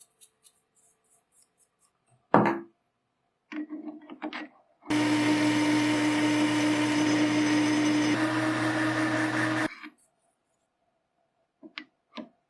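A sharp knock, a brief pitched start, then an electric power tool's motor running at a steady pitch for about five seconds before it cuts off suddenly, followed by a few small clicks.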